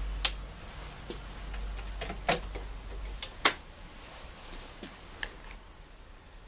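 Push-button power switch of an AKAI AA-1135L stereo receiver clicking on, followed by a few more sharp clicks over the next several seconds. A low hum drops away about three seconds in.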